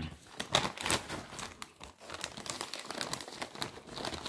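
Irregular crinkling and crackling rustle of a bag of Butterfinger candy-coated popcorn as a hand rummages in it.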